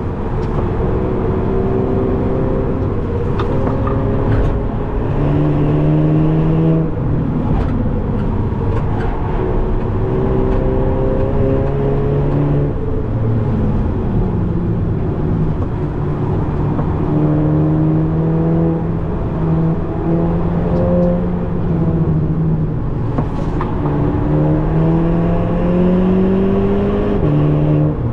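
Inside the cabin, a tuned VW Golf 7.5 GTI Performance's 2.0-litre turbocharged four-cylinder (EA888.3) engine pulls hard on track, its pitch climbing for several seconds at a time and dropping back sharply several times as the DSG gearbox shifts or the car slows, over steady tyre and road noise.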